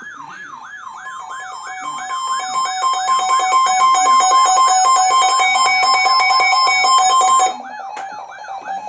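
Electronic alert siren: a fast rising-and-falling wail, about three sweeps a second, growing louder over the first few seconds. About a second in, a steady two-tone alert tone joins it. Both cut off suddenly about seven and a half seconds in, leaving a few more wails and a single held tone, as the alarm opening an emergency weather warning.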